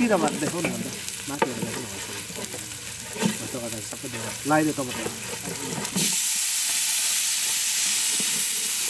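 Food frying in a large aluminium pot, stirred and scraped with a long ladle. About six seconds in, a loud, steady sizzling hiss starts suddenly as chopped tomatoes go into the hot oil.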